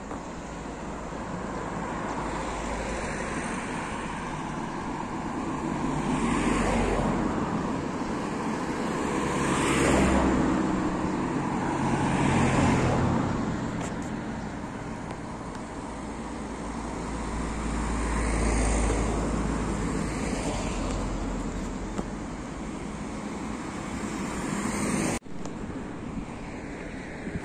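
Road traffic: several cars passing one after another, each swelling and fading over a couple of seconds over a steady hum. The sound breaks off sharply for an instant near the end.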